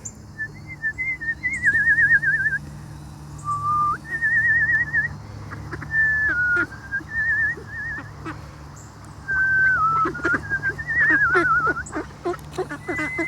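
A person whistling a wandering tune of clear notes, some held level and some wavering in a fast trill, stepping up and down in pitch. A scatter of short clicks comes near the end.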